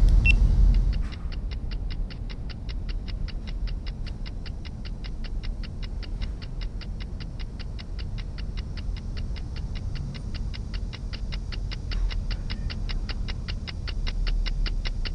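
Steady, fast clock-like ticking, about five ticks a second, over a low steady hum. It starts about a second in, as a louder rumble cuts off.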